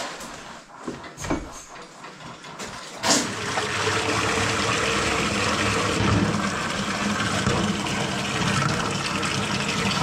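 A few light knocks and clatters, then about three seconds in, water starts running steadily, as from a tap filling a tub, with a faint hum under it.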